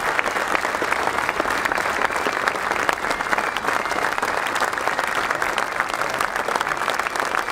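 Large stadium crowd applauding: a dense, steady mass of clapping.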